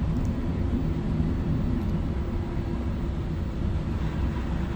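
Steady low rumble of a ship under way in strong wind, with a faint steady hum in it.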